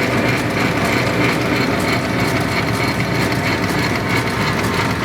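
South Bend 10K lathe running under its motor with the power cross feed engaged: a steady, dense mechanical running noise from the spindle, belt drive and feed gearing.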